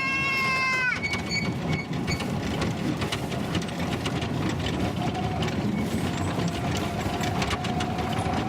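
Small trolley train running on a narrow-gauge forest railway. A high wheel squeal cuts off about a second in, then the cars rattle and click over the track, and a faint squeal starts to build near the end.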